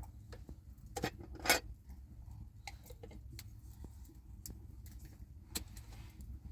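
Irregular clicks and knocks, the loudest about one and a half seconds in, over a steady low rumble.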